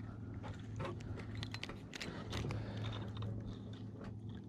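Irregular small clicks and rattles of a spinning reel being handled and cranked close to the camera, over a low steady hum.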